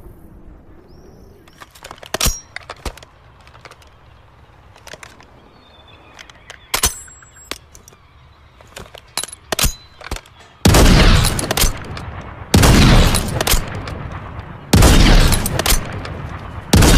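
Mors blunderbuss firing four loud shots about two seconds apart, each followed by a long rumbling tail. In the seconds before the shots come scattered sharp clicks and a ringing metallic clank.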